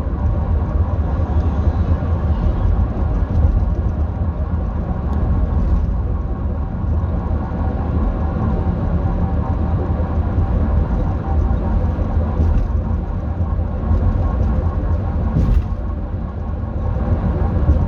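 2008 Dodge Grand Caravan running with a steady low rumble and a steady grinding whine from the drivetrain, a noise the owner wonders may be the transmission's differential bearings.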